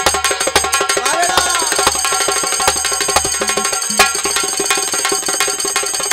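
Live jikdi bhajan accompaniment without singing: fast, dense percussion strokes over steady held tones.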